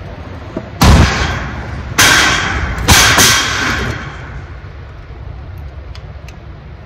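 Three loud bangs about a second apart, the last one doubled, each ringing on briefly in the echo of a large warehouse.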